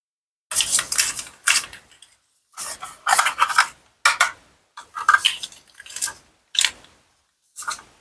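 Toy knife cutting apart plastic and wooden toy fruit: about six short bursts of scraping, crackling clatter, separated by silent gaps.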